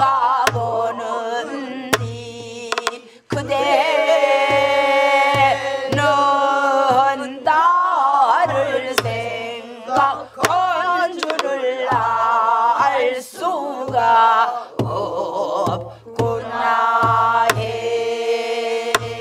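A woman sings a Namdo folk song in full voice with wide, wavering pitch bends, keeping time herself with stick strokes on a buk barrel drum, about one a second. Other voices from the class sing along.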